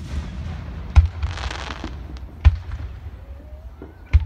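Aerial firework shells bursting in the sky, four sharp booms about a second or so apart, with a brief hiss between the second and third.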